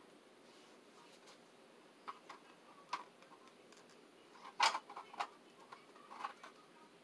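Scattered plastic clicks and taps as a colour filter is pushed and snapped onto the rim of a ring light, the loudest a quick cluster a little past the middle.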